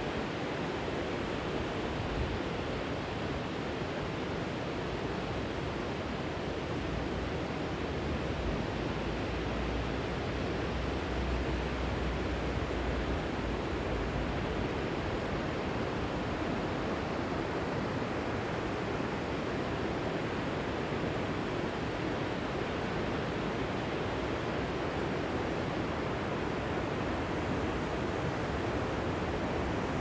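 River water pouring over a low stepped weir: a steady, even rushing.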